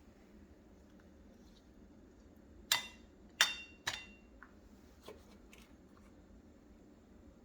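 A serving spoon clinking against a dish. Three sharp clinks with a short ring come close together about three seconds in, then two fainter taps.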